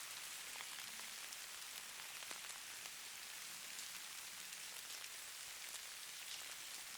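Steady, soft patter of falling precipitation on a surface: an even hiss with scattered sharper ticks of single drops or flakes striking.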